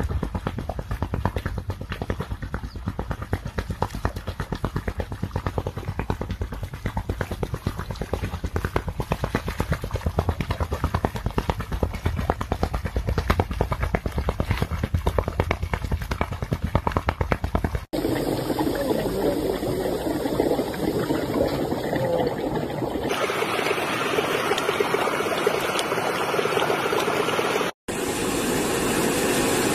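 Muddy water bubbling and churning where gas wells up from the ground through a puddle, a low, rough, fluttering sound. About eighteen seconds in it cuts sharply to a different steady rushing noise.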